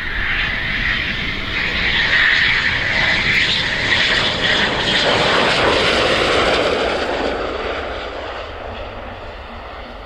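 Eurofighter Typhoon's twin EJ200 turbofan engines on landing approach: a jet roar with a high whine, loudest as the jet passes close about halfway through, then fading over the last few seconds.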